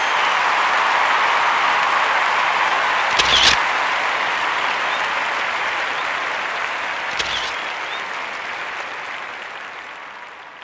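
A crowd applauding steadily, with brief sharper accents about three and seven seconds in, fading out toward the end.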